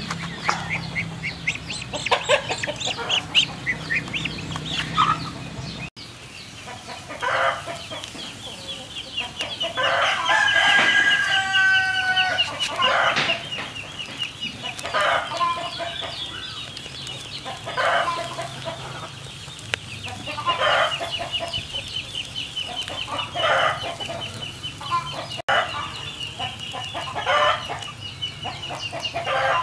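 Chickens clucking in short calls every couple of seconds, with a rooster crowing once, about two seconds long, roughly ten seconds in.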